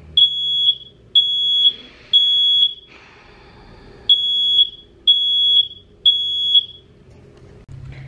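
Smoke alarm sounding: three loud, high-pitched beeps about a second apart, a short pause, then three more, the temporal-three pattern of a fire alarm. A soft rustle fills the pause between the two sets.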